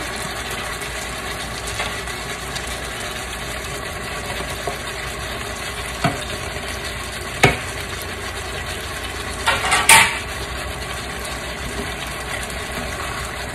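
A pot of chicken wings and black mushrooms simmering in oyster sauce gives a steady hiss, while a spoon stirs in it. There are a few sharp knocks of utensils against the pot, the loudest about seven and a half seconds in, and a brief clatter around ten seconds.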